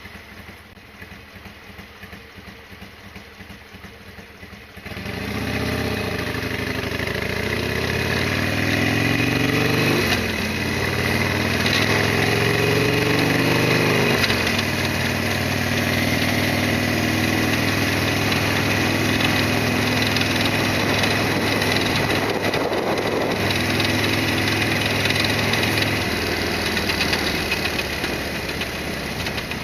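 Harley-Davidson Sportster XL1200R 1200 cc V-twin running quietly at first. About five seconds in it gets much louder, and its pitch rises and drops several times as it revs and shifts through the gears. It then runs steadily under way.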